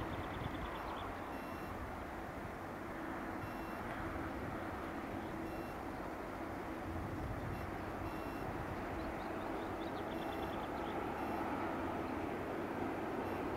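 Distant low rumble and steady hum of an approaching TEP70 diesel locomotive and its train, slowly growing louder. Birds chirp now and then, and a faint high beep repeats about every two seconds.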